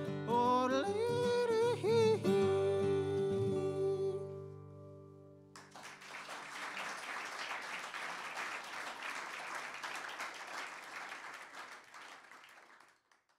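A man's wordless closing yodel over acoustic guitar. His voice jumps between notes, then settles on a long held note while the guitar rings out about four seconds in. Audience applause starts about six seconds in and dies away near the end.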